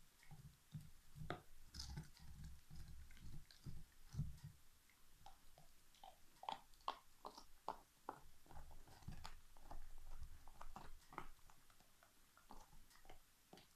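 Alaskan Malamute gnawing a large turkey bone, faint. Soft, repeated low thuds of jaw work come first, then from about five seconds in a run of short, irregular clicks and cracks as the teeth work the bone.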